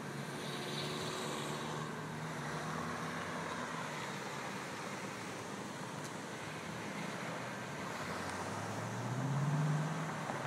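Road traffic on an adjacent street: a steady hum of passing cars, with one vehicle's engine growing louder as it passes about nine seconds in.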